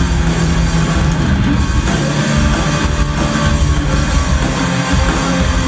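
A live rock band playing electric guitars over drums and a keyboard.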